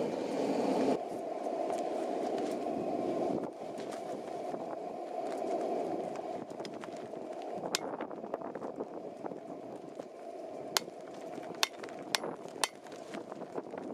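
Hand hammer striking steel held in tongs on an anvil tool: five sharp, ringing blows in the second half, the last four within about two seconds. A steady rushing noise runs underneath.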